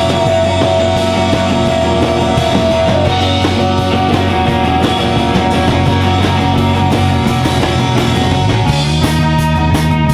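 A rock band playing live, with guitar prominent; a long held note ends about three seconds in.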